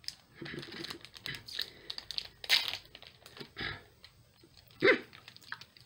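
Foil-wrapped Pokémon booster pack crinkling and tearing as a stubborn wrapper is worked open by hand, with one louder crackle near the end.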